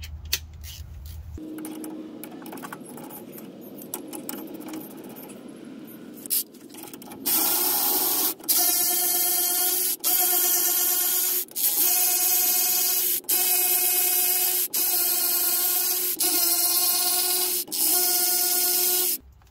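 Cordless electric ratchet spinning out differential cover bolts in short trigger pulls: from about seven seconds in, about eight runs of a steady motor whine, each roughly a second long with brief breaks. A fainter whir comes before that.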